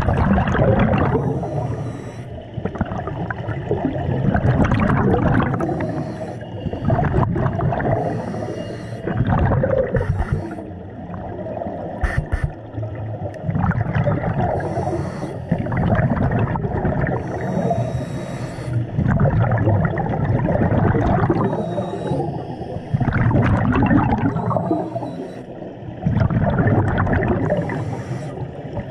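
Scuba diver breathing through a regulator underwater: a short hissing inhale, then a longer bubbling exhale, repeating every four to five seconds.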